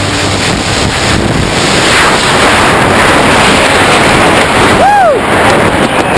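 Heavy wind buffeting the camera microphone during a tandem parachute descent under an open canopy. About five seconds in there is a short vocal whoop that rises and then falls in pitch.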